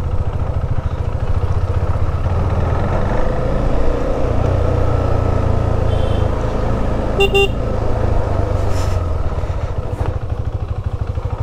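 KTM Duke 390's single-cylinder engine running steadily at low road speed. About seven seconds in, a vehicle horn gives a short double toot.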